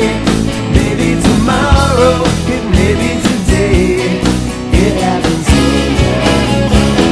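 Rock band recording playing an instrumental passage: electric guitars, bass and drums, with a lead line of gliding, bent notes over a steady drum beat.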